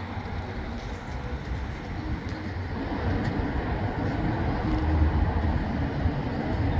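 Steady low vehicle rumble with a light hiss, growing slightly louder toward the end.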